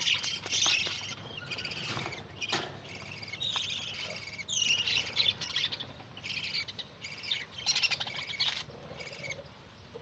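Budgerigars chattering: bursts of short, high chirps and warbles, one after another, thinning out near the end.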